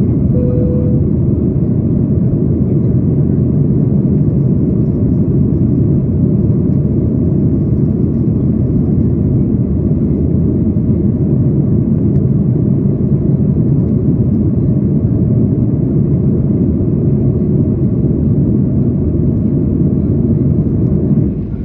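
Steady jet engine and airflow rumble heard inside the cabin of a Boeing 737 airliner in flight after takeoff, deep and unchanging. A brief beep sounds within the first second.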